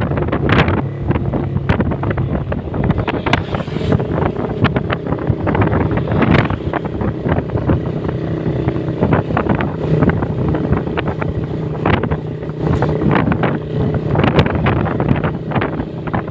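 Motorcycle engine running at a steady cruising speed under heavy wind noise buffeting the microphone.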